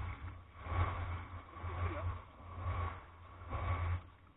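Small waves washing over a pebble shore close by, swelling and fading about once a second, with a low rumble under the wash.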